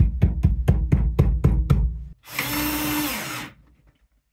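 A quick run of sharp, evenly spaced knocks, about six a second, for the first two seconds. Then a power drill whirs for about a second and winds down.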